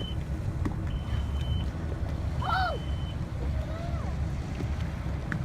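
Steady low rumble of a boat under way, motor and wind together. Two short high electronic beeps sound in the first half, and a brief rising-and-falling voice sound comes around the middle.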